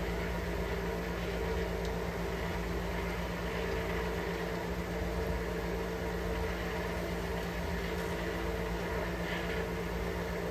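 Steady hum of a running motor, unchanging throughout, with a few faint light taps.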